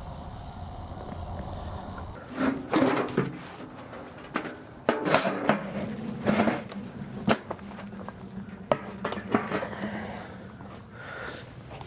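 For about two seconds a wood fire burns in an open steel drum, with wind on the microphone. Then comes a run of sharp metal clanks and knocks as the chimney pipe and lid of the steel-drum charcoal kiln are handled and a concrete block is set on the lid.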